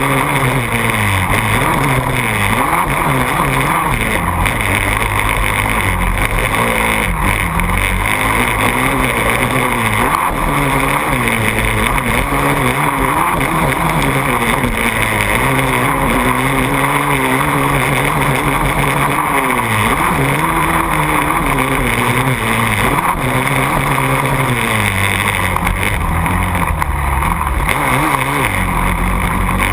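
KTM 450 SX quad's single-cylinder four-stroke engine revving hard and falling off over and over as it is ridden around a motocross track, heard from a camera on the handlebars.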